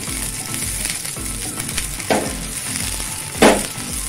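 Sliced mushrooms and garlic sizzling in olive oil in a non-stick frying pan, stirred with a wooden spatula. The hiss is steady, with two short louder knocks of the spatula against the pan, about two and three and a half seconds in, the second the louder.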